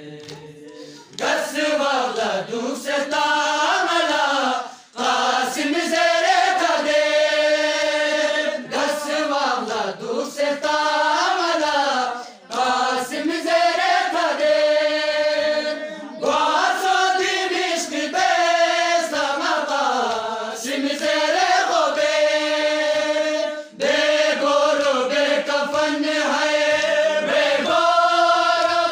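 A group of men chanting a noha, a Shia lament, in unison and without instruments. They sing in long phrases with brief pauses for breath between them.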